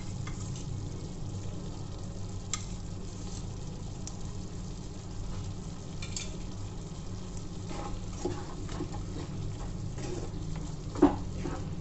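Chicken curry simmering and sizzling in a nonstick frying pan. From about eight seconds in, a spatula stirs it, scraping and knocking against the pan, with the strongest knock shortly before the end.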